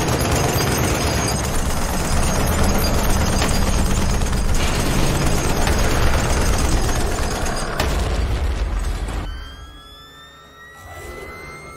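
Film action soundtrack: dense gunfire and explosions against a creature, mixed with score. About nine seconds in this cuts away to a rising electronic whine as a sci-fi plasma rifle charges up.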